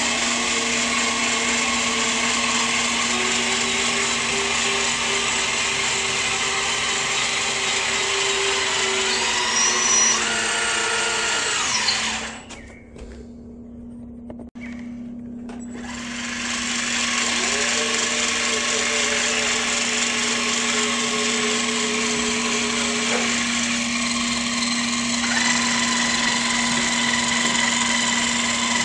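Electric motors and gearboxes of a remote-control CAT 5110B model excavator whining as it drives on its tracks and works its boom, the pitch shifting as the motors change speed. The whine drops away for a few seconds about halfway through, then starts again.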